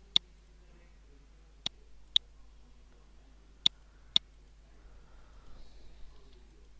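Computer mouse button clicking five times, sharp and short: one click, then two pairs of clicks about half a second apart.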